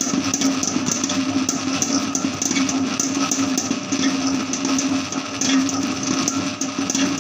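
Electric dough mixer running, its hook kneading a mass of bread dough in a stainless steel bowl. The motor gives a steady hum, with a repeating light clatter of the hook and dough against the bowl.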